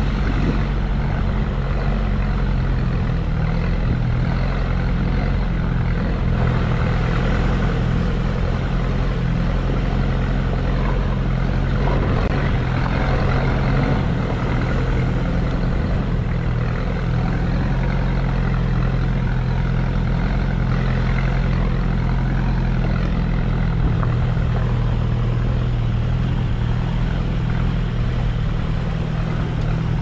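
Vehicle engine running at a steady low drone while driving along a dirt track, with a constant rush of wind and road noise on the roof-mounted camera.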